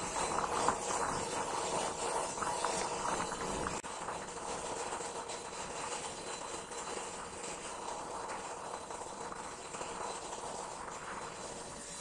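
Hot steel edge of a machete blade, cut from an old circular saw, pressed into a wet banana trunk for edge quenching, sizzling steadily as the trunk's water boils off against it.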